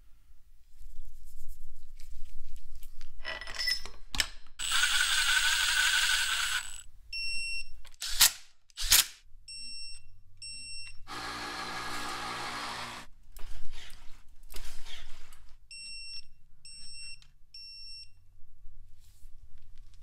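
Workshop tool sounds: two stretches of whirring, hissing tool noise, the second with a low hum under it, two sharp clicks between them, and short high electronic beeps, two pairs and then three in a row near the end.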